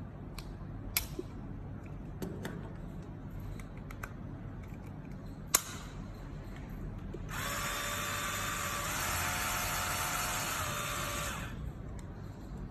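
A few plastic clicks as the foil shaver head is snapped onto a Kemei 3-in-1 epilator, the loudest about halfway through. Then the epilator's small motor is switched on and runs with a steady buzz for about four seconds before it is switched off.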